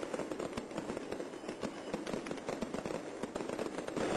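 Firecrackers crackling and popping in rapid, irregular succession over a steady din.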